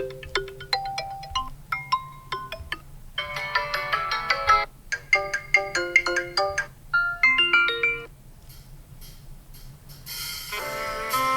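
Stock ringtones of a Xiaomi Redmi Note 11 playing. A melody of quick, separate notes stops about eight seconds in, and after a gap of about two seconds a fuller, denser ringtone starts.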